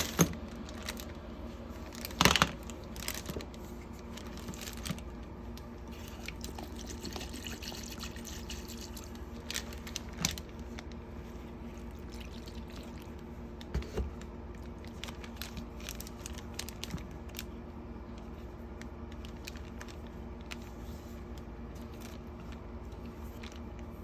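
Evaporust rust remover being poured and handled around a plastic pouch, with scattered knocks and clicks, the loudest about two seconds in, over a steady low hum.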